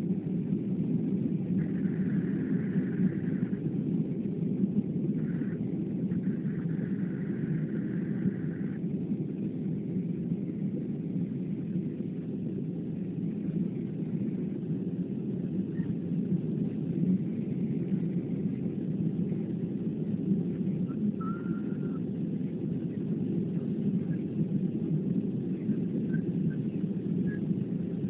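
Cabin noise of a Boeing 737-500 climbing out after takeoff: the steady low drone of its CFM56 turbofan engines and airflow, heard from inside the cabin.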